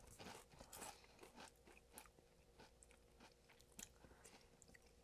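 Faint chewing of crisp potato chips, with scattered crunches every half second or so as they are ground up.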